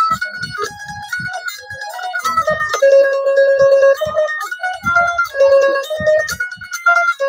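Indian banjo (bulbul tarang) being played: a quick plucked melody of bright, metallic string notes, with a few notes held longer around the middle.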